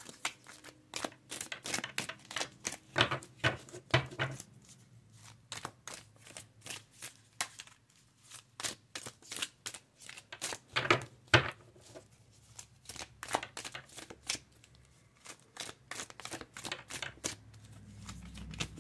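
Tarot deck being shuffled by hand, overhand: a quick, uneven run of light card slaps and clicks, with a louder pair of slaps about eleven seconds in.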